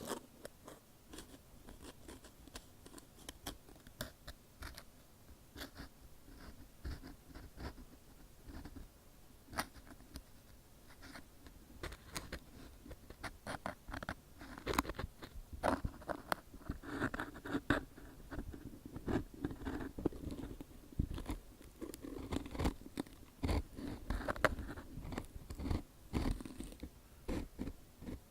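Ear pick scratching and scraping close to the microphone in ear-cleaning ASMR: an irregular stream of soft clicks and scratchy strokes, busier and louder in the second half.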